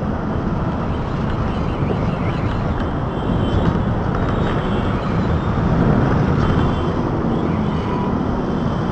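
Steady road and traffic noise heard from a moving vehicle on a city street: a constant low rumble, with faint higher tones from passing traffic.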